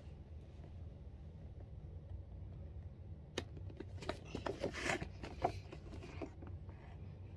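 An action figure's cardboard box with a clear plastic window being handled and turned over in the hands: a sharp click about three seconds in, then a second or so of rustling and scraping of the packaging.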